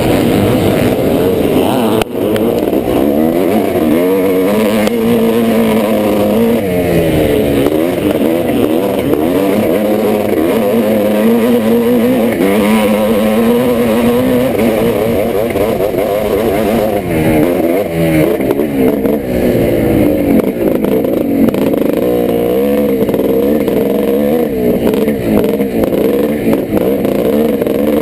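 1986 Yamaha YZ490's two-stroke single-cylinder engine ridden hard, its pitch rising and falling again and again with throttle and gear changes. A sharp knock about two seconds in.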